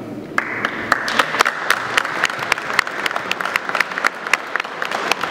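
Audience applause, starting about half a second in, a dense patter of many hands with sharp single claps standing out.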